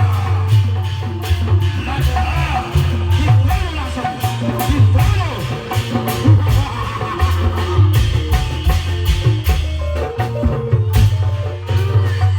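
Music for a Reog Indramayu street performance: fast drums and hand percussion over a heavy bass, with a wavering singing voice on top.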